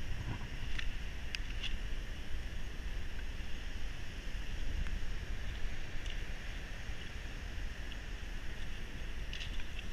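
Storm wind buffeting the microphone over a steady roar of surf, with a few light clicks of stones knocking underfoot on a wet cobble beach.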